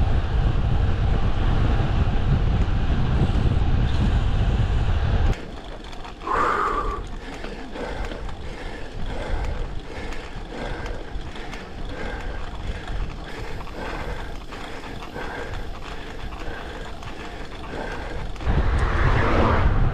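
Wind rumbling on the microphone of a camera riding along on a road bike at speed. It drops away suddenly about five seconds in to a much quieter stretch with faint, evenly repeated clicks, and the loud wind rumble returns near the end.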